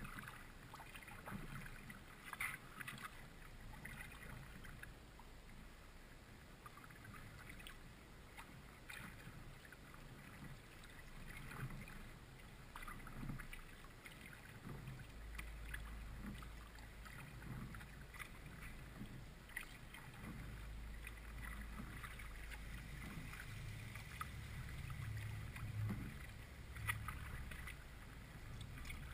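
Kayak paddle strokes in calm creek water: soft dips and splashes every second or two, with a low rumble at times.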